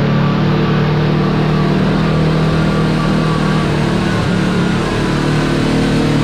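Kawasaki Teryx KRX4 1000 side-by-side's parallel-twin engine running at a steady pitch while the machine drives along a trail, over a constant rush of tyre and trail noise.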